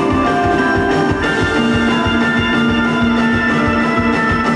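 Instrumental post-rock band playing live: electric guitars holding sustained notes over a busy drum beat, loud and steady.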